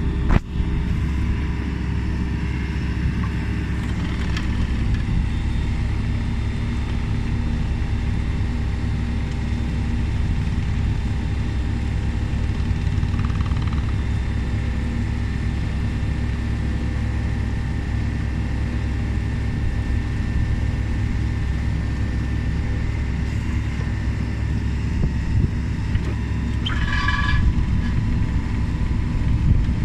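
Takeuchi TB295W wheeled excavator running steadily, with a sharp knock just after the start and a brief higher-pitched whine near the end.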